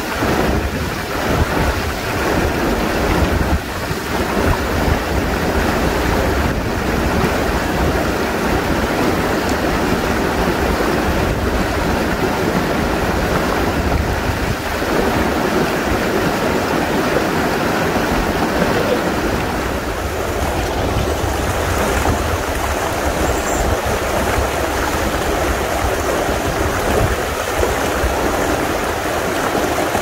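Rushing water of a rocky river, a steady, loud rush of noise with a deep rumble underneath.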